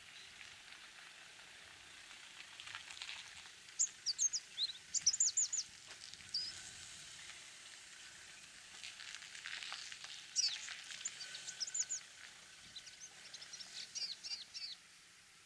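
Orange-breasted sunbird singing: several bursts of rapid, high-pitched twittering notes, each note a quick downward sweep, separated by short pauses, over a faint steady hiss.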